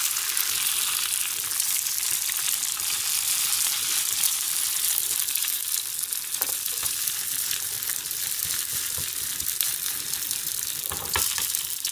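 Eggs frying in hot oil in a frying pan, a steady sizzle, with a few clicks of a metal fork against the pan partway through and near the end.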